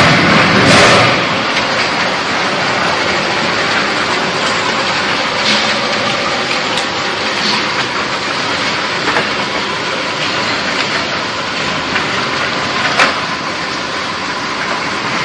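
Log debarker machine running with a log passing through it: a steady, loud rattling clatter as its rotating heads strip the bark, with a few sharper knocks.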